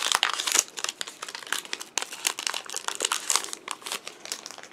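Foil wrapper of a Pokémon booster pack crinkling and rustling as it is handled and opened, a dense run of crackles that thins out near the end.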